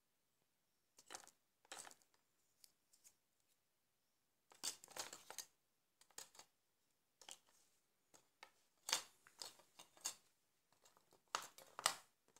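A disassembled Nokia 1100's plastic housing parts and circuit board being handled and set down on paper: irregular light clicks, scrapes and rustles, in a few short clusters.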